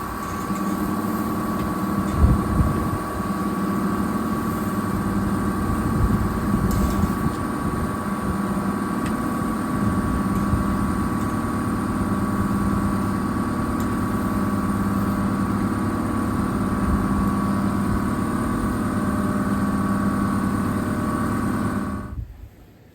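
A machine's motor running steadily with a droning hum that stops abruptly near the end.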